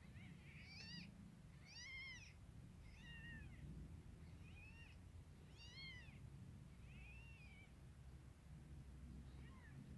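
Newborn kittens mewing while they nurse: faint, high-pitched little cries that rise and fall, about one a second, with a pause near the end.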